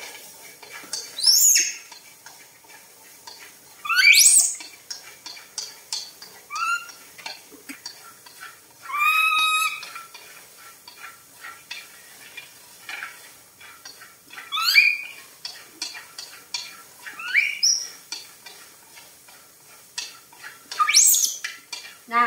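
Corn kernels being stirred in a metal wok, the utensil scraping and tapping the pan in quick short strokes. Over it, baby monkeys give about eight shrill squealing calls that sweep in pitch, one every two to three seconds, louder than the stirring.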